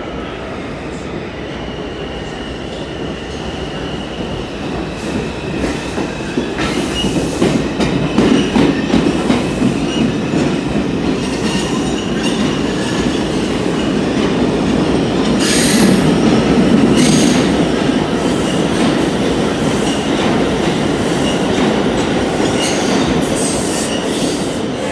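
New York City Subway train running past on the far track: a heavy rumble of wheels and cars with clacks over rail joints and a thin, high wheel squeal. It grows louder through the middle and eases off slightly as the last car goes by near the end.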